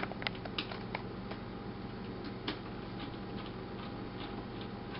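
Small screwdriver turning a screw into a laptop: a quick run of light clicks in the first second or so, one sharper click about halfway through, then a few faint ticks.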